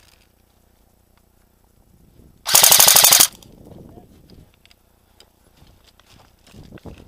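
Airsoft gun firing on full auto: one short burst of about ten rapid, evenly spaced shots lasting under a second, about two and a half seconds in.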